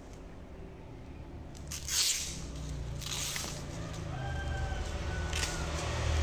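Dry palm straw being split with a small knife and shaken apart: scratching and rustling strokes, the loudest about two seconds in. A long pitched animal call sounds in the background from about three and a half seconds in until near the end.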